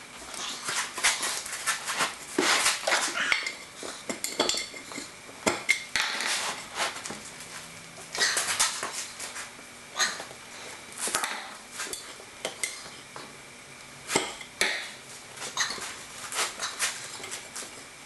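Metal tools clanking and scraping against a steel wheel rim as a tire is worked onto it by hand: irregular clanks and knocks, several a second at times.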